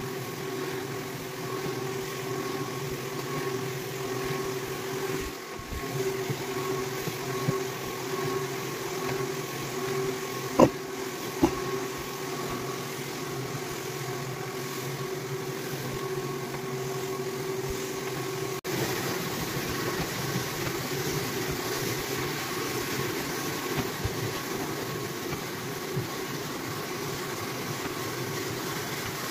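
Rotary floor buffer screening a hardwood floor: a steady motor hum with the abrasive plate grinding on the old finish. Two sharp knocks come about ten and eleven seconds in. Past the middle there is a sudden break, after which the sound turns rougher and noisier.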